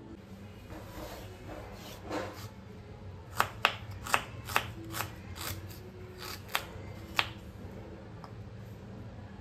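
A kitchen knife chopping fresh ginger on a wooden cutting board. About three seconds in, after a soft rustle, come about ten sharp, separate knocks of the blade on the board over some four seconds.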